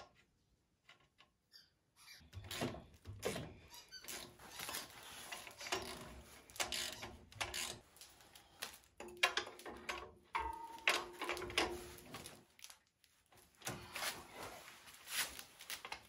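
Irregular clicks, clinks and knocks of hand tools and metal parts being handled while a fan clutch is fitted onto an engine's water pump.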